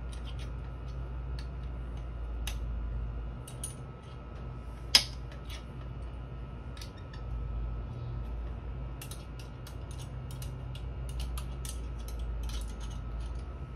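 Light metallic clicks and clinks of hand tools working the handlebar mount bolts on a motorcycle, with one sharp click about five seconds in and a quick run of small clicks near the end, over a steady low hum.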